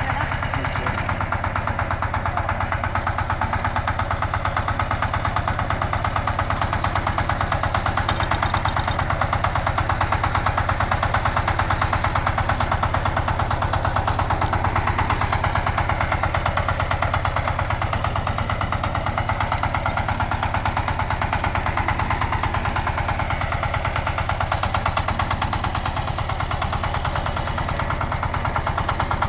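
Two-wheel power tiller's single-cylinder diesel engine running steadily, with a fast, even chug.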